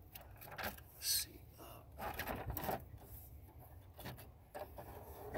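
Handling sounds of a car battery being freed from its tray: scattered light clicks, knocks and scrapes as the cable terminal and battery are worked by hand, with brief rustles between them.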